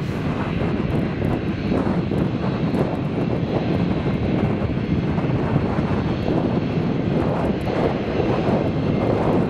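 Jet engines of a taxiing Japan Airlines Boeing 787-8 Dreamliner, a steady, loud noisy hum with no break.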